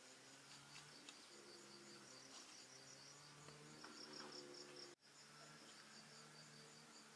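Faint insects, likely crickets, chirping in rapid, evenly repeated pulses, over a faint low hum. The sound drops out for an instant about five seconds in.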